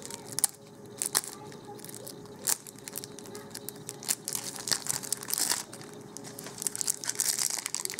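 Clear plastic shrink-wrap crinkling and tearing as it is peeled off a stack of trading cards: irregular crackles with sharp little clicks.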